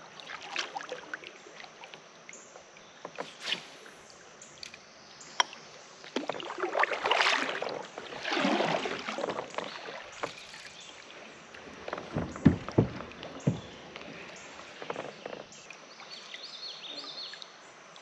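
Kayak paddle strokes swishing and splashing through the water, with a few sharp knocks about two-thirds of the way through.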